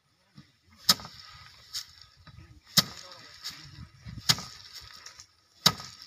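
Bundles of harvested rice stalks beaten by hand against a wooden threshing frame: five sharp whacks at uneven spacing, about a second or more apart, each followed by a brief rustle of straw and loosened grain.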